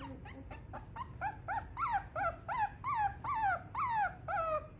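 Four-week-old Schnauzer puppy whimpering in a quick run of short whining cries, each rising then falling in pitch, about four a second, faint at first and louder from about a second in.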